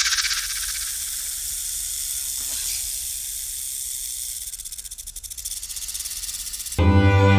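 A snake's hiss sound effect: a long, steady, high-pitched hiss that dips about five seconds in, cut off near the end by bowed-string music.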